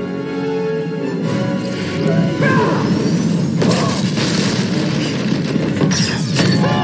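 Film soundtrack: orchestral score with crashing impact sound effects of a superpowered fight, several hits and sweeping effects over the music from about a third of the way in.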